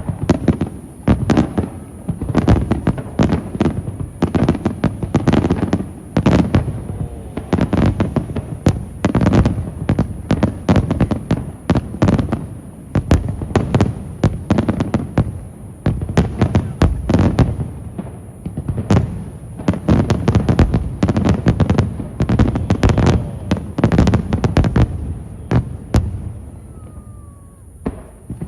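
Aerial fireworks shells bursting in a dense, rapid barrage, several bangs a second, thinning out and stopping near the end.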